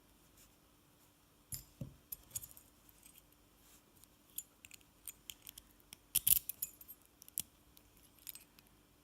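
Scattered small metallic clicks and clinks from hands working a KASP padlock with tools, with a brief cluster of louder clinks about six seconds in.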